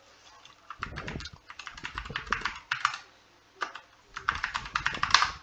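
Typing on a computer keyboard: two quick runs of key clicks with a short pause between.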